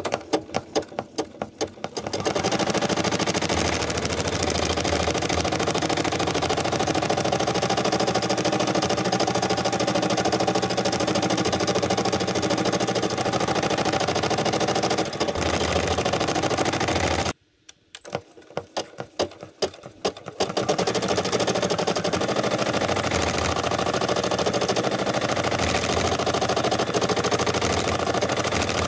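Brother SE600 embroidery machine stitching. It starts with a few separate needle strokes, then speeds up into a fast, steady run. A little past halfway it stops abruptly, restarts with separate strokes, and picks up to the fast run again.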